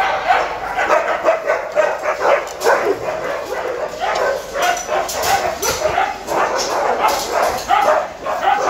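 A pack of huskies yipping and barking together in a continuous, overlapping clamour of short calls.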